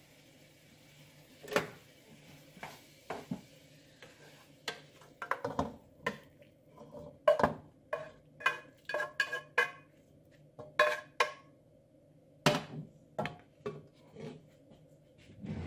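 Wooden spoon and granite-coated frying pan clacking and scraping against a stockpot as cooked meat is scraped from the pan into the pot, then stirred. The knocks come in an irregular series of sharp clacks, some in quick clusters.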